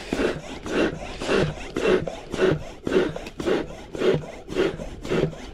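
Hand air pump worked in steady strokes, about two a second, each stroke a rush of air, inflating the air poles of an inflatable swag tent.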